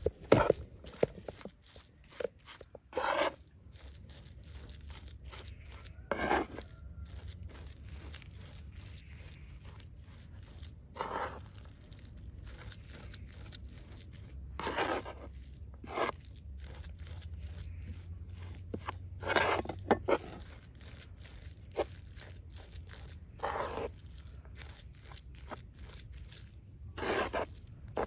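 Kitchen knife chopping herbs on a wooden cutting board: quick, irregular taps, with a louder scraping stroke every few seconds as the blade drags across the board.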